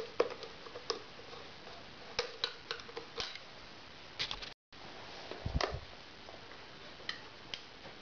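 Small metallic clicks and taps of hands working at a Harley-Davidson Sportster's headlight and fork bracket, with a duller knock and rustle a little after halfway. The sound cuts out for a moment just before that knock.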